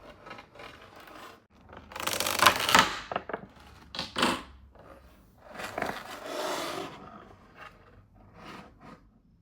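Packaging being handled and torn open: irregular bursts of rustling, scraping and tearing. The loudest burst comes about two to three seconds in, with shorter ones near four seconds and around six to seven seconds.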